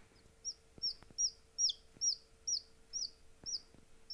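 Newly hatched Appenzeller chick peeping: about nine short, high-pitched peeps, each sliding down in pitch, coming two to three a second.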